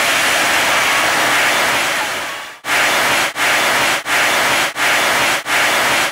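Loud static-like hiss, steady at first, then from about two and a half seconds in pulsing with a brief dropout roughly every 0.7 seconds.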